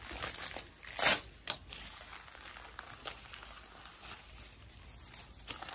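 Padded paper mailer envelope rustling and crinkling as it is handled and pulled open by hand, with two louder sharp crackles about a second in.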